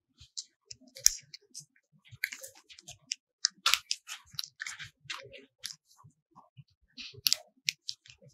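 Irregular small clicks and brief rustles in a room, scattered unevenly throughout, with a few louder ones about a second in and between three and four seconds in and again near the end.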